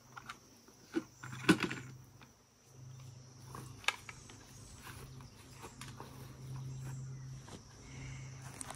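A few sharp knocks and clicks of gear being handled, the loudest about a second and a half in, over a steady low hum and a steady high hiss.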